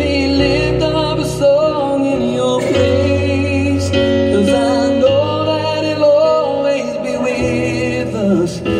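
Live worship song: a man singing long held notes over his own keyboard accompaniment, the bass changing every second or two.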